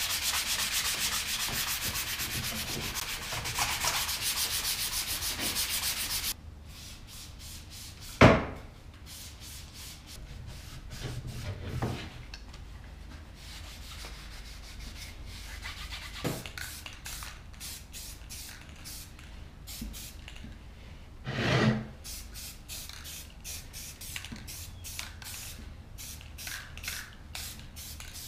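Hand-sanding a .22 rifle stock with quick, rapid strokes for about six seconds, scuffing it for paint. Then a sharp knock on the plywood bench, followed by quieter wiping strokes as the stock is wiped clean with water, with a few light knocks.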